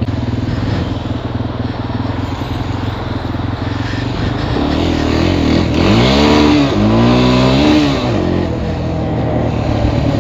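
Suzuki ATV engine running under the rider, its revs climbing about five seconds in, dipping briefly and climbing again before settling back about eight and a half seconds in.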